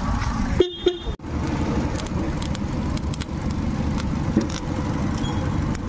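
Steady low rumble from the car's engine bay, briefly cutting out twice about a second in.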